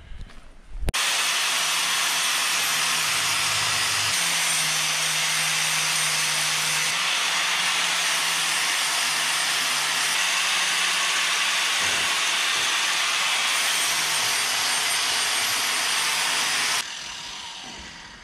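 Angle grinder grinding steel on a hedge cutter's flail head: a steady harsh hiss of grinding over the motor's low hum, starting suddenly about a second in and stopping near the end, where it fades as the disc spins down.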